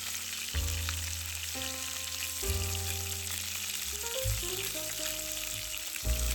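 Food sizzling as it fries in a skillet, a steady crackling hiss, under background music with sustained notes and a bass line that changes every second or two.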